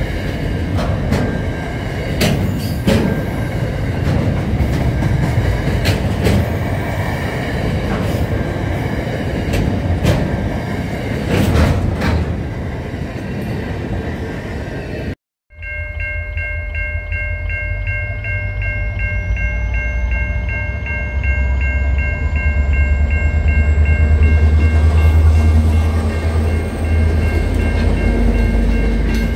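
A freight train of container wagons passes a station platform, its wheels clattering over the rail joints. After a short cut, level crossing bells ring steadily and fast while a yellow diesel freight locomotive and its wagons pass through the crossing, the engine's low rumble growing loudest in the second half.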